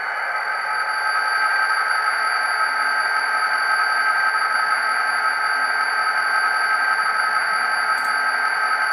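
ESU LokSound Select decoder playing a GMD 16-cylinder 645 diesel sound file at idle through the HO model locomotive's small speaker: a steady engine sound with a high whine over it. A short click comes near the end.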